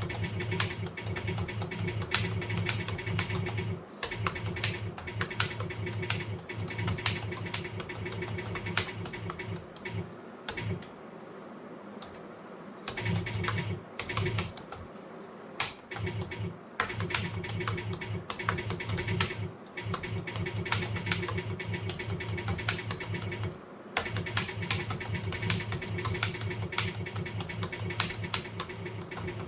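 Fast typing on a computer keyboard: a dense, continuous run of keystrokes, broken once about ten seconds in by a pause of some three seconds and by a few shorter gaps.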